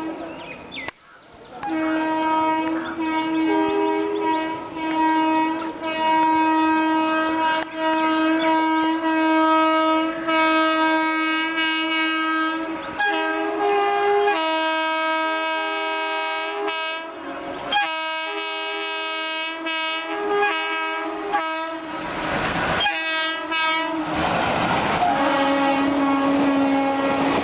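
An Indian Railways WAP-4 electric locomotive's horn honking in a long string of blasts, some held for several seconds and some cut short, shifting between two pitches. Near the end the honking gives way to the rushing noise of the express running through at speed, with a horn note still sounding over it.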